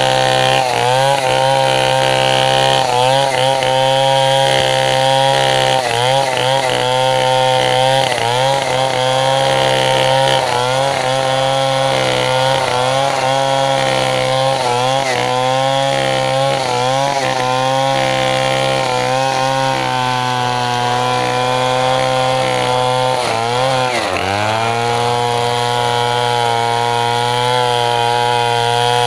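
Stihl MS 070 two-stroke chainsaw ripping lengthwise through a mahogany log at high revs, its pitch dipping and recovering again and again as the chain bogs under load in the cut. About three-quarters of the way through the pitch drops sharply once and climbs straight back.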